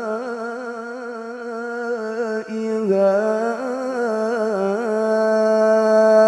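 A man reciting the Quran in melodic tilawah style into a handheld microphone, drawing out one syllable in long wavering melismatic turns. Near the end the voice settles into a long, louder held note.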